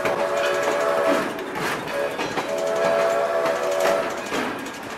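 Steam locomotive whistle sounding in several blasts, the last one held about one and a half seconds, over the clatter of the train's wheels on the rail joints.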